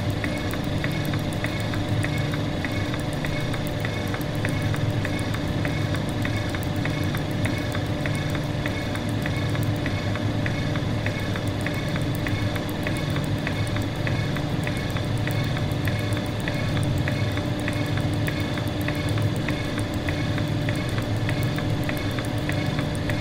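Steady mechanical drone with a constant hum and a regular ticking about twice a second, like running production machinery.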